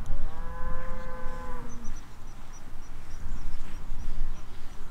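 One long call from a farm animal, lasting nearly two seconds, over a steady low rumble. A row of short, high chirps, about three a second, follows from about two seconds in.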